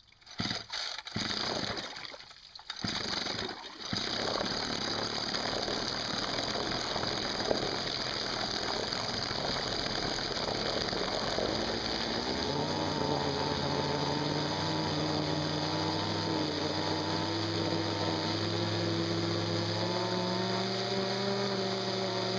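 Ryobi two-stroke weed-eater engine, rigged as a small boat motor, starting with a few short bursts and then running steadily, its propeller churning water in a test tub. About twelve seconds in, its note settles into a steady engine tone that climbs slowly in pitch as it speeds up.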